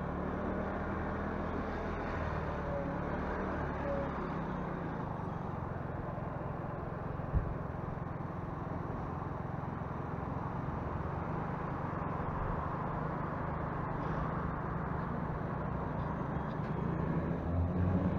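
Motorcycle engine running steadily at low riding speed, with wind and road noise on the microphone. A single short knock comes about seven seconds in, and the engine grows louder near the end.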